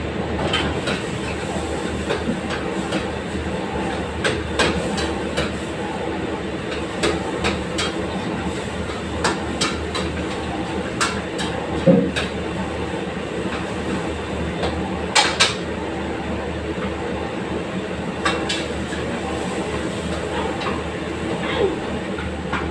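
Steady rumble and hum from a commercial gas range and kitchen, with a wok of chicken curry simmering on the burner, giving scattered light pops and clicks, a few of them louder, around the middle.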